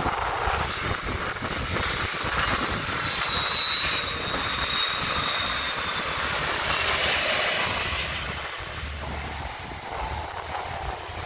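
Airbus A330 jet airliner passing low overhead on final approach with its gear down, its engines' high whine falling slowly in pitch as it goes by. The jet noise is loudest a few seconds in and eases off near the end.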